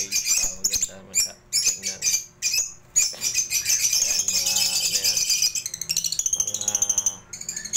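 Caged cockatiels and lovebirds chattering: a continuous run of shrill chirps and squawks, busiest in the middle, with a quick run of repeated calls near the end.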